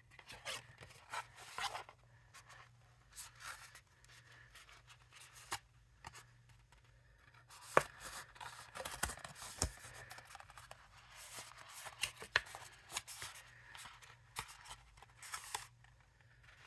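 Thick card stock being handled and folded: irregular rustling and creasing with scattered sharp taps, the loudest about eight seconds in.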